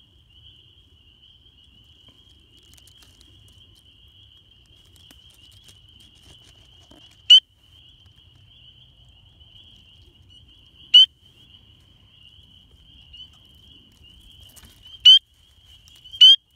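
A male spring peeper (Pseudacris crucifer) gives four loud peeps, each a short rising whistle, a few seconds apart with the last two close together. Behind them runs the steady high chorus of many more peepers calling at once, their breeding call.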